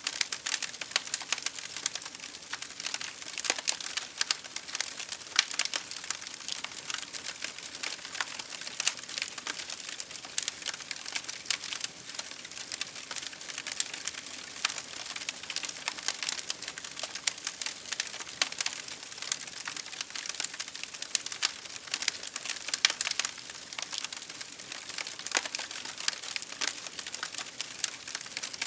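Fire crackling: a dense, unbroken run of small sharp pops and snaps, with no low rumble underneath.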